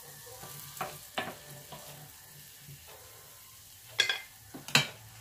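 Wooden spoon stirring diced onion in melting butter in a stainless-steel Saladmaster electric skillet, over a light sizzle. A few sharp knocks of the spoon come about a second in and again near the end.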